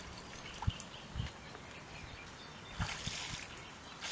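Quiet outdoor background with two soft low thumps about a second in and a short rush of hiss around three seconds in.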